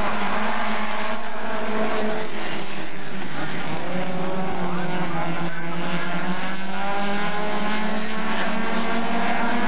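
A pack of super stock dirt-track race cars running hard around the oval, several engine notes overlapping and rising and falling as the cars go through the turns and down the straight.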